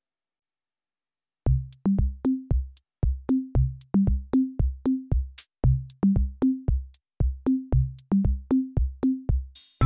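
Background music: after a silent second and a half, an electronic drum-machine beat of punchy low drum hits in a repeating pattern that steps up in pitch, several hits a second. A hissing cymbal swell near the end leads into fuller music.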